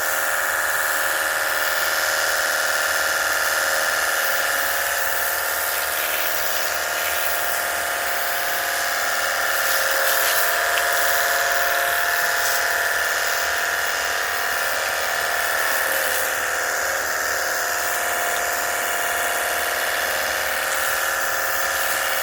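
Cordless battery-powered pressure washer running, its small electric pump motor giving a steady whine over a hiss, then cutting off abruptly at the very end.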